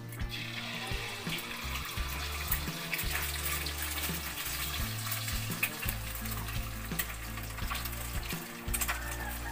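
Egg frying in hot cooking oil in a pan, a steady sizzle that starts suddenly just after the beginning. Background music with low bass notes runs underneath.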